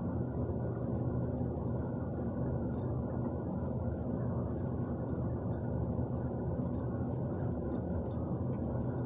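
Steady low indoor background hum, with faint high ticking scattered through it.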